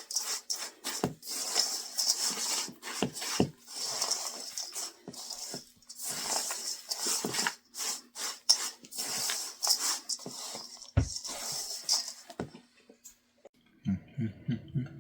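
A utensil scraping and stirring a sticky peanut butter and syrup mixture through oats in a mixing bowl: a run of scrapes and clicks against the bowl that stops shortly before the end.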